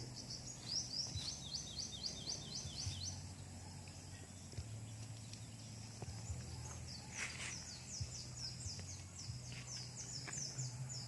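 A bird calling outdoors: fast runs of high, falling chirps, about four or five a second, one near the start and a longer run in the second half, over a faint low hum.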